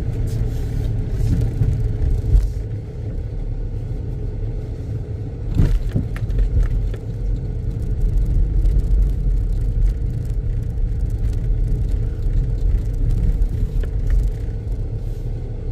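Car cabin noise while driving slowly: a low, steady rumble of engine and tyres with a faint steady hum, and one short knock about six seconds in.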